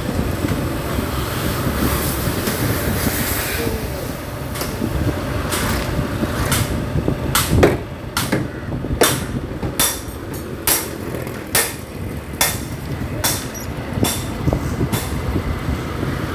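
Low street traffic rumble, joined a few seconds in by a run of sharp hammer blows on metal, roughly one blow a second, as in rickshaw body tinkering.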